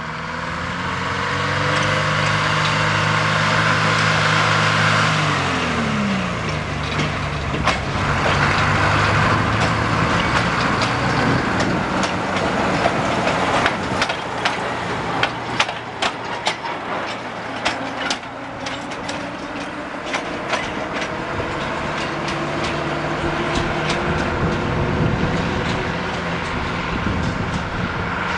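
Diesel engine of a Soviet-built TU6-series narrow-gauge locomotive running as it moves through the yard, dropping in pitch about five seconds in. Midway there is a quick run of sharp clicks and clacks as wheels roll over the track, then the engine drones on steadily again.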